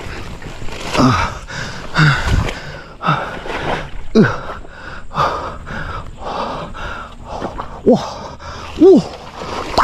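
A man panting hard and grunting with effort about once a second, with a short voiced 'oh' cry near the end: the strain of hauling in a big fish.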